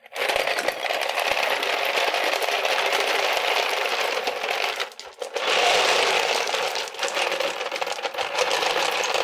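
Ice cubes sliding out of a plastic tray and tumbling into a bucket of water: a dense rattling clatter that pauses briefly about five seconds in, then starts again.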